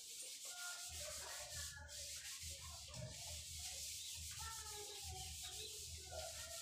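Eraser rubbed back and forth over a whiteboard, wiping off marker writing, in steady scrubbing strokes.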